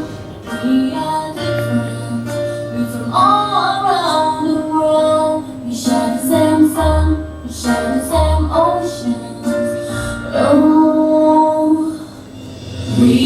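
Music: a song sung by a female voice, with held and gliding notes over an instrumental backing with a bass line.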